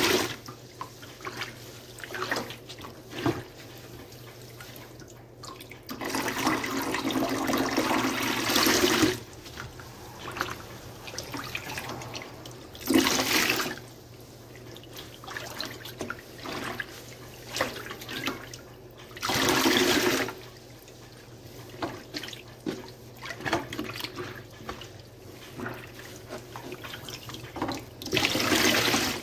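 Sponge soaked in soapy dish-soap water squeezed by hand, water gushing out in four louder spells, the longest about three seconds. Between them come wet squishing and crackling of suds.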